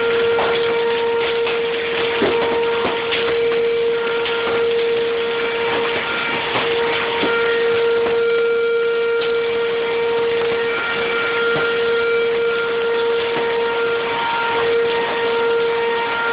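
Outdoor tornado warning siren sounding a steady tone, holding one pitch and swelling and fading slightly as it rotates, over storm rain with many sharp hail strikes.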